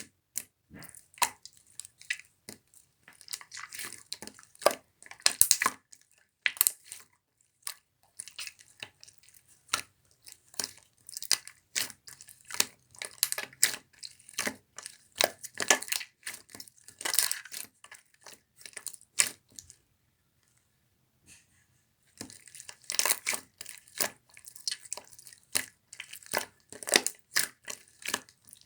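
Colorless clear slime being played with by hand, making rapid, irregular sharp clicks and crackling pops, with a pause of about two seconds roughly two-thirds of the way through.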